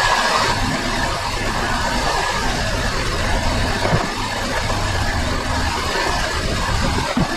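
Chrysler minivan engine idling while the transmission is shifted in and out of gear, with two dull clunks, one about four seconds in and one near the end, as the engine rocks. The clunking is the sign of worn motor mounts whose rubber has broken down.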